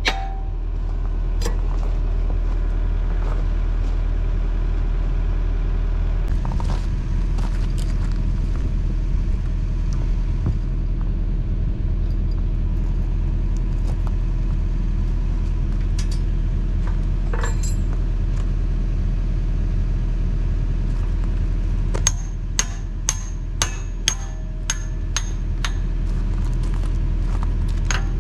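Mini excavator's diesel engine idling steadily. Sharp metal-on-metal hammer blows on a steel attachment pin come singly a couple of times, then in a quick run of about six around two-thirds of the way through.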